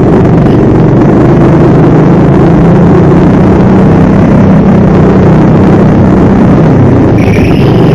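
Go-kart engine running loud and steady at high revs, recorded onboard the kart, its pitch wavering only slightly through the corners. A brief high squeal near the end.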